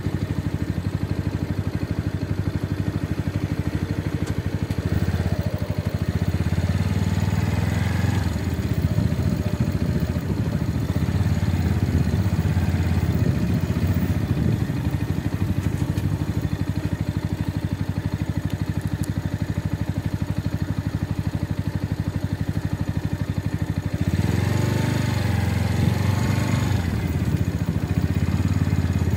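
Small motorcycle engine running steadily at low speed on a rough dirt track. It grows louder for a while about a fifth of the way in and again near the end.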